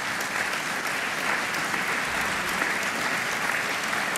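Audience applauding steadily, a dense even clapping with no break.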